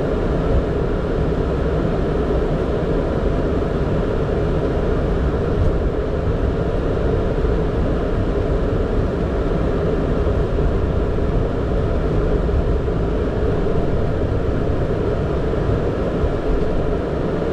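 Steady drone in a Boeing 767 cockpit while taxiing, the engines near idle, with no sudden sounds.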